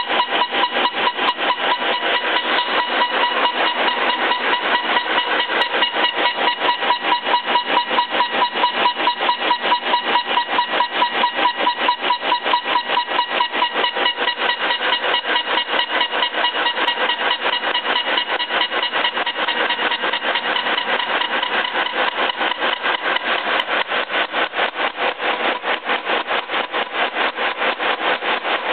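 Boring tool on a horizontal boring mill cutting steel inside a welded-up bore, machining it back to size. A continuous metallic scraping that pulses evenly several times a second, over a steady ringing tone.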